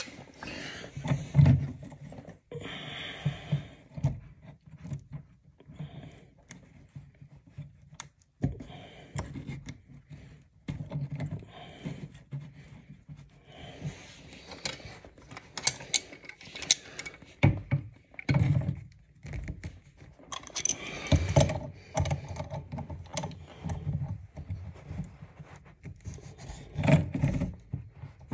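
Metal clinks, rattles and scrapes of a new compression angle stop and plumbing wrenches being handled and fitted onto a copper supply pipe. Irregular knocks and scrapes, louder in a few bursts, with wrench jaws gripping and scraping on the valve near the end.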